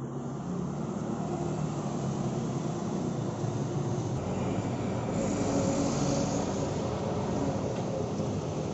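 Street traffic: vehicle engines running with tyre noise, the hiss growing louder from about five seconds in.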